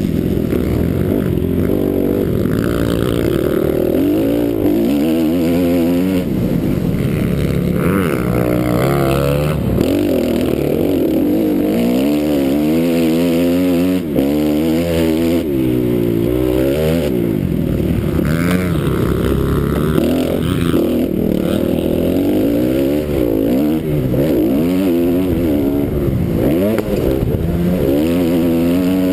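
450-class motocross bike engine at race pace, revving up and down over and over as the throttle opens and closes.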